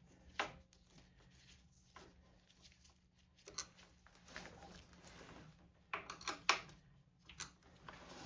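A few light, scattered clicks and taps of hand work on a motorcycle's steering stabilizer, with a small cluster about six seconds in.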